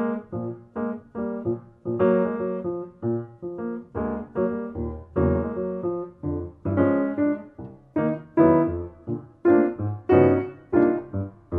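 Solo piano playing an instrumental jazz/MPB piece: short detached chords struck at a quick steady pulse, about three a second, each dying away quickly. After about two seconds it moves into fuller, more sustained chords.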